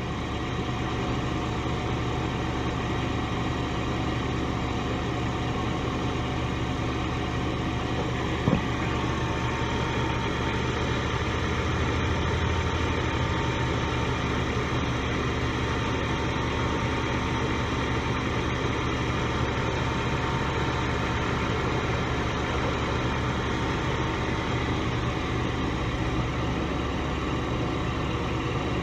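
2014 Kia Sorento running with a steady mechanical hum and a faint steady whine. A brief knock comes about eight seconds in.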